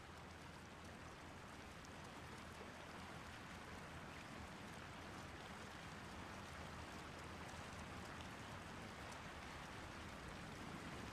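Faint, steady rushing of a flowing creek running past its ice shelf, growing slightly louder across the span.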